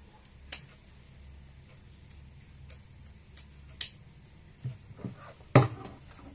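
Plastic side-release buckle on a bag strap clicking: two sharp snaps, one about half a second in and one near four seconds, with a few fainter clicks between. Near the end the fabric bag is flipped over on a wooden desk, giving a couple of soft knocks and then a dull thump, the loudest sound.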